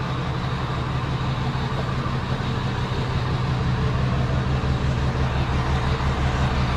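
Rollback tow truck's engine idling steadily, an even low drone close by.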